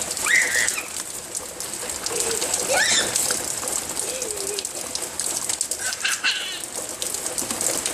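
Steady rain falling, a dense hiss of drops, with a few short high-pitched cries that glide up and down about a second apart to a few seconds apart.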